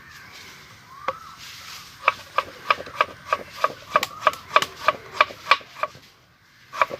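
Knife chopping on a cutting board: a single stroke, then a steady run of about a dozen sharp strokes at roughly three a second, pausing briefly before two more near the end.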